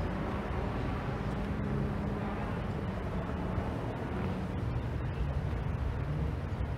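Steady outdoor city background: a constant low rumble, with a faint low hum in the first half.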